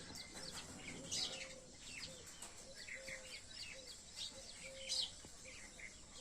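Birds chirping and twittering, many short high calls overlapping, with a low note repeating at an even pace underneath.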